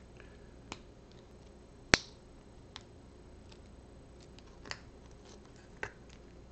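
Plastic LEGO pieces clicking as they are pressed together by hand: about five sharp snaps, the loudest about two seconds in, with a few fainter ticks between.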